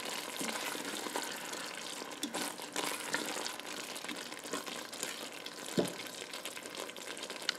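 Thick cream sauce with Brussels sprouts and bacon simmering in a Ninja Foodi inner pot on medium sauté while a silicone spoon stirs through it: a steady wet sizzle with soft squelches and light clicks of the spoon against the pot. One sharper knock comes about six seconds in.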